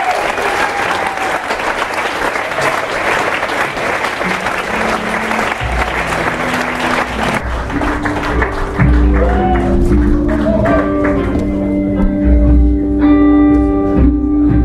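Live concert audience applauding for about seven seconds, the clapping dying away as the band begins the next song's intro: guitar over low, sustained bass notes that grow louder about nine seconds in.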